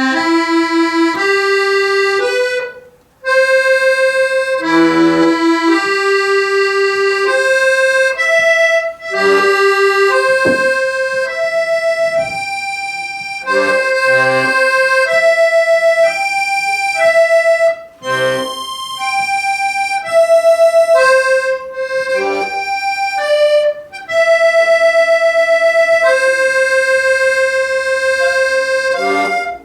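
Accordion playing short arpeggios: right-hand notes stepping up and down, held and reedy with many overtones, with a bass note or chord marking the first beat of each group. The playing breaks off briefly about three seconds in and again near 18 and 24 seconds before carrying on.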